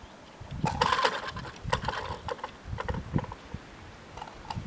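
Level-crossing barrier booms coming down onto their rests with a burst of irregular rattling clatter, loudest about a second in and dying away over the next two seconds.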